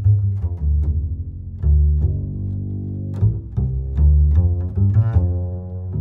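Background music carried by low pitched notes with sharp attacks, several to the second.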